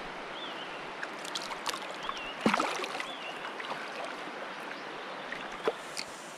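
River water lapping and splashing close around the camera as a chub is let go by hand in the shallows, with clicks and one sharp splash about two and a half seconds in.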